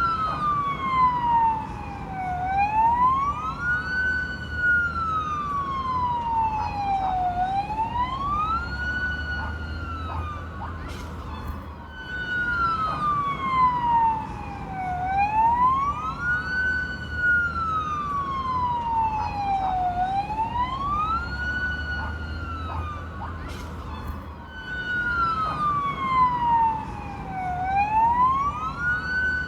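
Fire truck siren wailing: a single tone slides down over about two and a half seconds, climbs back up in under two, sometimes holds at the top for a moment, and repeats throughout. A low rumble runs underneath.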